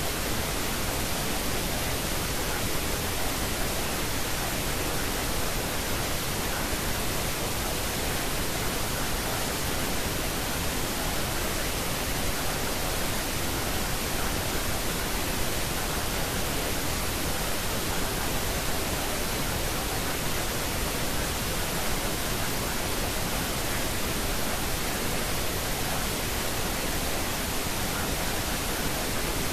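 Steady, unchanging noise hiss spread evenly from low to high pitch, the masking layer of a subliminal-affirmation recording.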